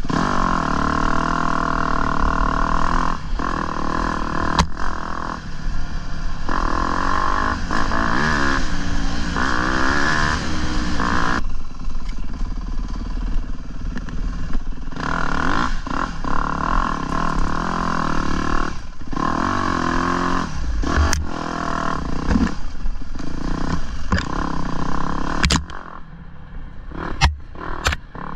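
Off-road dirt bike engine ridden on a rocky trail, revving up and falling back again and again as the throttle is opened and closed, with occasional sharp knocks and clatter. Near the end the engine drops to a lower, quieter note for a couple of seconds.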